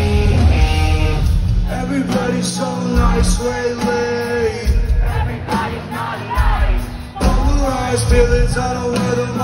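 Live rock band playing loud through a concert PA, with a male lead singer. Electric guitar and drums are full and heavy for the first couple of seconds, then the band thins out and the singing voice carries the melody.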